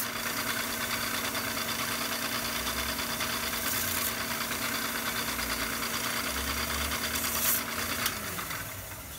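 Half-horsepower belt grinder running with a steady motor hum while a knife blade is held to its worn, compound-loaded belt, adding a brief hiss a couple of times. About eight seconds in, the hum falls in pitch and fades as the motor spins down.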